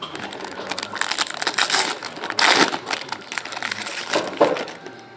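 Foil trading-card pack wrapper being torn open and crinkled by hand: a run of dense crackling, loudest in the middle, that dies away near the end.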